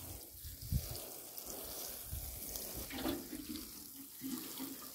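Water sprinkling from a watering can's rose onto loose soil, a steady splashing hiss. A short low bump just under a second in.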